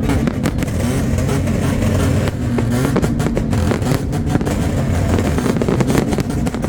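Car engine running steadily.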